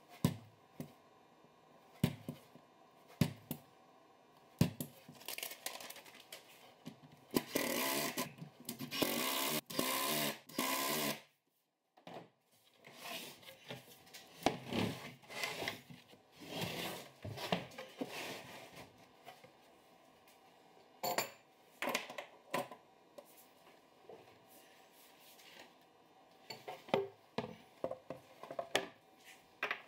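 Woodworking handling sounds: several sharp taps of an awl marking screw holes through a paper template on a plywood cabinet floor, then a few seconds of steady scraping and rubbing, and irregular knocks and rubs of plywood cabinet parts and a wooden lazy-susan shelf being moved and fitted.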